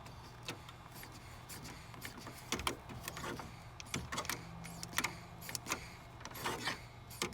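Mityvac hand vacuum pump being pumped, a short squeaky click about once a second, over a steady low hum. The line it is pumping on is leaking and builds no vacuum.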